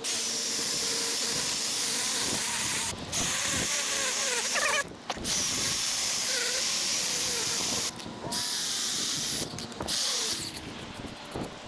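Power saw cutting through a tree branch, running in long bursts with a few brief pauses as the trigger is let off.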